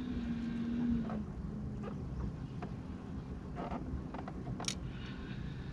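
Bass boat's bow-mounted electric trolling motor humming steadily, its pitch stepping down about a second in as the speed is eased off, over a low rumble of wind and water against the hull, with a few light clicks from the fishing reel and tackle.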